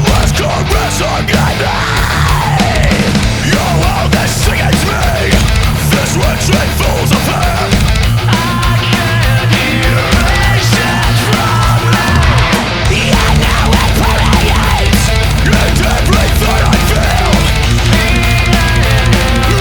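Loud heavy-metal music with distorted guitars and drums.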